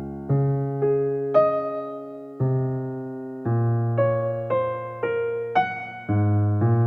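Soft background music: an electric piano playing slow chords and single notes, each note struck and left to fade.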